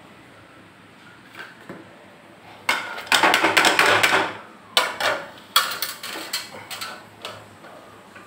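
A metal spatula working onions in hot oil in an iron kadai. About three seconds in comes a loud rasping stretch of scraping that lasts about a second and a half, then a string of sharp metal-on-metal clinks against the pan.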